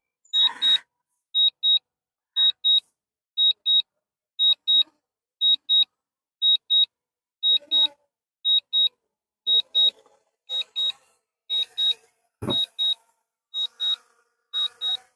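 A drone's return-to-home alert: short high double beeps repeating about once a second. There is a single soft knock near the end.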